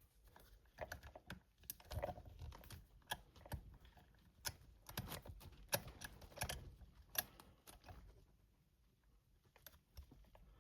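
Faint, irregular small metallic clicks and taps of a tension tool and a Master Lock 100th Anniversary padlock being worked in a vise while its shackle is pulled. The clicks die away about eight seconds in.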